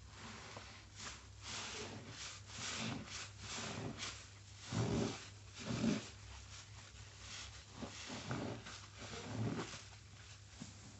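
Soap-drenched sponge being squeezed and kneaded by gloved hands in a tub of foamy water: a run of wet squelches and crackling suds, with two louder squelches midway.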